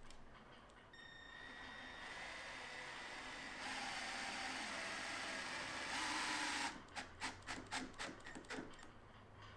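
Power drill driving a screw into a plywood panel: the motor whirs steadily for several seconds, gets louder twice, and cuts off suddenly, followed by a run of short bursts.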